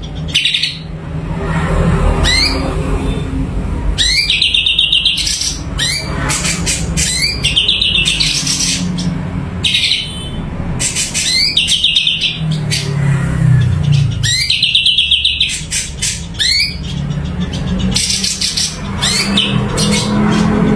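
Cucak cungko songbird singing continuously, with short rising whistles and fast rattling trills repeated every second or two.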